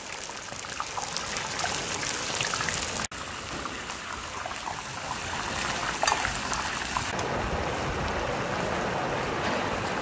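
Lamb pieces searing in hot sunflower oil in a giant cast-iron kazan: a steady sizzle full of small crackles and pops. About seven seconds in it turns to a duller, steadier hiss.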